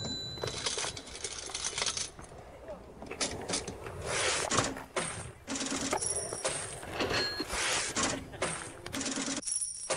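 Edited soundtrack: irregular clattering, noisy hits and short high metallic pings like dropped coins or small chimes, the same pattern of pings coming back about every three and a half seconds.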